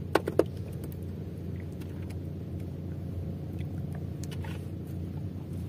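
A small engine running steadily with a low hum, with two or three sharp clicks just after the start.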